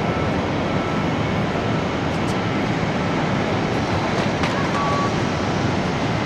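Boeing 747-400 jet engines at takeoff thrust, a steady, unchanging rush of noise.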